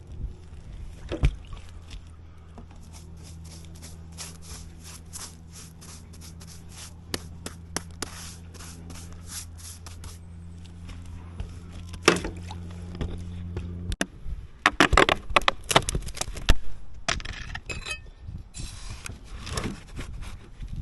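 Repeated scraping and clicking from hand work on roofing materials, over a steady low hum that cuts off suddenly about fourteen seconds in.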